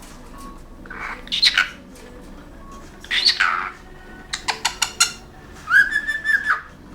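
Pet cockatiel calling: two short harsh calls, a quick run of sharp clicks, then a held whistle near the end.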